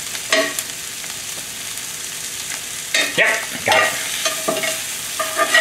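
Mushrooms and snow peas sizzling in a cast iron skillet. A metal spatula scrapes and knocks against the pan as they are stirred, once just after the start, in a cluster about three seconds in, and again near the end.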